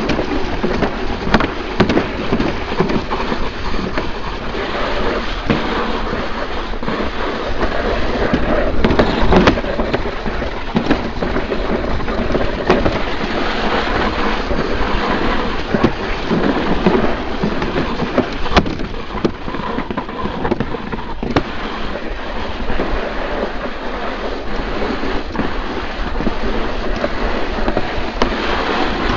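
Summer toboggan sled running down a trough track: a loud, steady rumble and scraping of the runners in the channel, with frequent knocks and clatters as it takes the bends.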